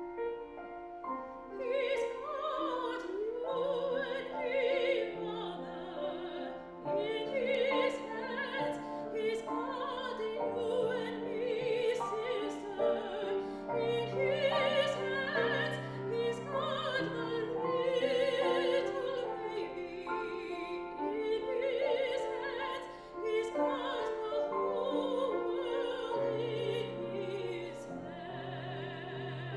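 A woman singing a classical song with vibrato, accompanied by a grand piano. The piano plays alone at first, and the voice enters about two seconds in.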